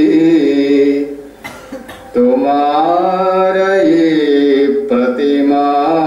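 Background music: a voice singing a slow, chant-like melody in long held notes over a steady low drone, with a pause about a second in before the singing resumes.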